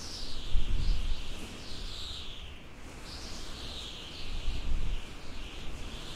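Howling desert wind: a high whistle that slides down in pitch in repeated gusts, about four sweeps, over a low gusting rumble.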